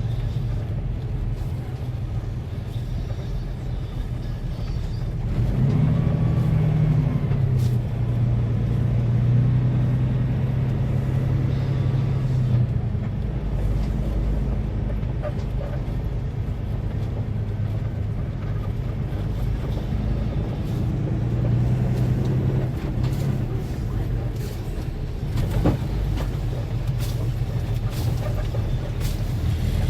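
Semi truck's diesel engine running, heard from inside the cab as the truck moves at low speed. Its note rises about six seconds in, then holds steady.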